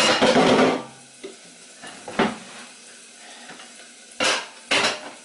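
Rustling and clattering of car parts and their packaging being handled: a long rustle at the start, a sharp knock about two seconds in, and two short rustles near the end.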